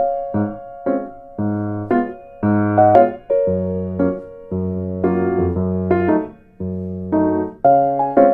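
Background piano music: slow chords struck about once a second, each left to fade before the next.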